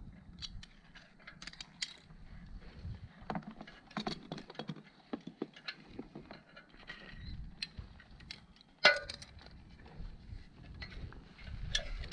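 Scattered metallic clinks and knocks of tools and hardware being handled, with one sharp, much louder knock about nine seconds in.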